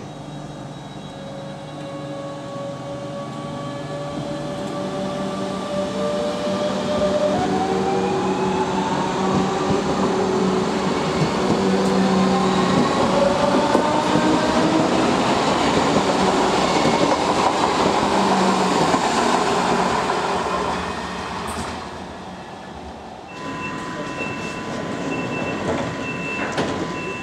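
DB Class 425 electric multiple unit running past, its traction drive whining in several tones that rise in pitch as it gathers speed, with wheel and rail rumble loudest about halfway through. After a cut, a train standing at a platform with a steady hum and a repeated high beep.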